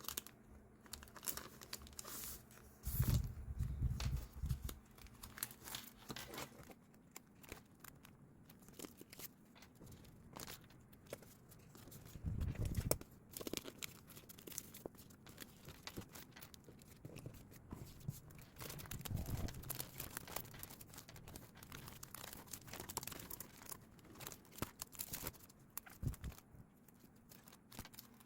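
Paper crafting sounds of diary decorating: stickers and tape peeled and torn, paper crinkling and rustling in short irregular strokes. Heavier handling thumps come about three seconds in, around twelve seconds and around nineteen seconds.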